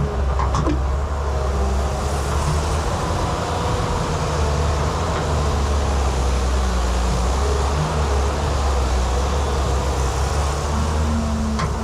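JCB excavator's diesel engine running steadily under working load, with a short clank or two from the machine.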